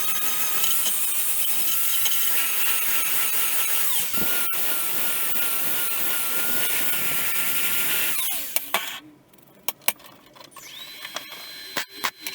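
A power tool running steadily with a high whine, then winding down about eight seconds in, followed by a series of sharp clicks.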